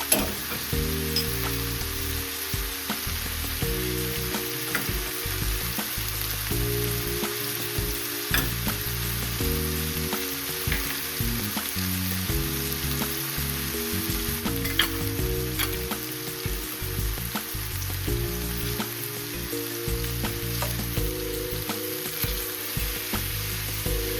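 Food sizzling and crackling in a hot oiled frying pan, with scattered sharp clicks of stirring, over a background music line.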